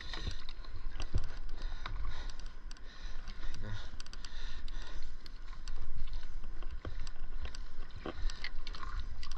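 Handling noises as gloved hands unhook a lure from a flounder on a paddleboard: scattered short clicks and knocks over a steady low rumble and hiss.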